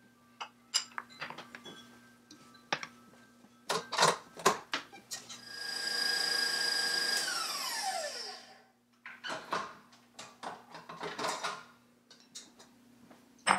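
KitchenAid stand mixer whisking mascarpone cream. Scattered clicks and knocks of the bowl and whisk come first. About five seconds in, the motor runs fast with a steady high whine, then falls in pitch as it is switched off and spins down. More light clicks follow.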